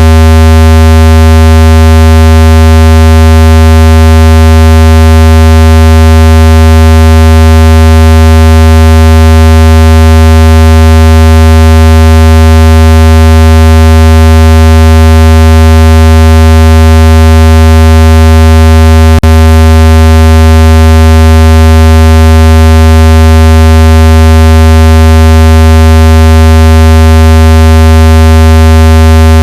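Speaker-cleaner tone: a very loud, steady, low buzzing tone rich in overtones, played to shake water and dust out of a phone speaker. It holds unchanged, broken only by one brief click about two-thirds of the way through.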